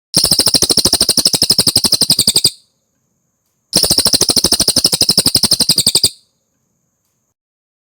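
A cililin songbird singing two long, fast trills of evenly repeated high notes, each about two and a half seconds long, with a pause of about a second between them.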